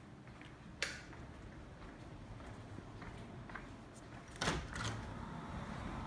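Low handling noise from a handheld phone carried through the rooms, with a sharp click about a second in and a louder knock and rustle about four and a half seconds in.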